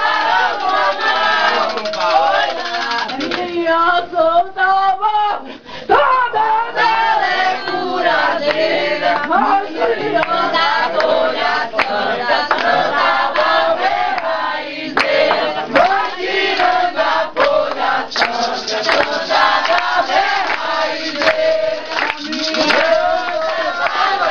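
A group of people singing an Umbanda chant (ponto) together, with hand clapping throughout and a brief break about five and a half seconds in.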